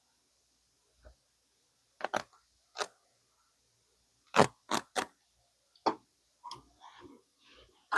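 A blade cutting through the stitching of a denim waistband: a string of short, sharp snaps as threads give way, some in quick pairs, followed by softer scraping and rustling of the denim near the end.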